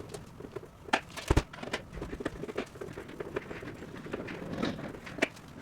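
Scattered light clicks and knocks, with one heavier knock about a second and a half in.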